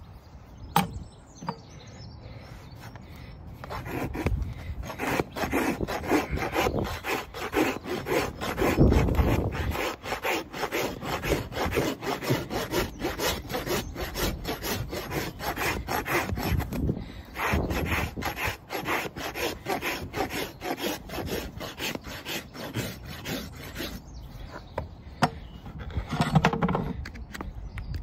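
A farrier's rasp drawn back and forth in rapid strokes across a horse's hoof, filing down the horn of the sole and wall to level the foot during a trim. The rasping starts about four seconds in and stops a few seconds before the end.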